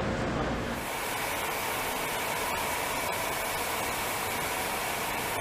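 Steady rushing noise of industrial process-tank machinery and ventilation. About a second in it changes from a low rumble to a brighter hiss carrying two faint steady whining tones.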